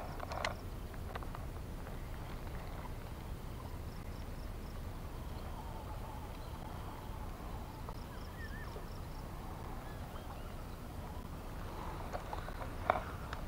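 Quiet outdoor ambience: a steady low rumble with a few faint high chirps, probably birds or insects, and a couple of sharp clicks, one about half a second in and one near the end.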